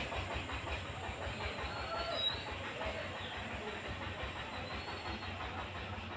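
Steady outdoor background noise: a constant high-pitched hiss over an uneven low rumble, with a few faint, brief tones in the distance.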